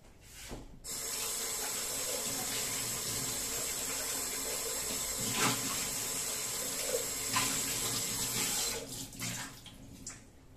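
Water tap running into a sink, turned on about a second in and shut off near the end, with a couple of short knocks while it runs.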